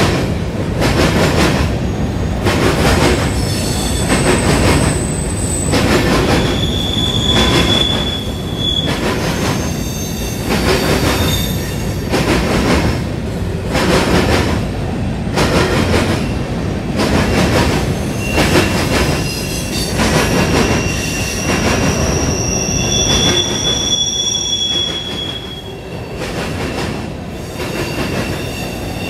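Loaded freight cars (covered hoppers) rolling past, their wheels clattering over the rail joints in a steady rhythm. High-pitched wheel squeal comes and goes, strongest a few seconds in and again past the middle.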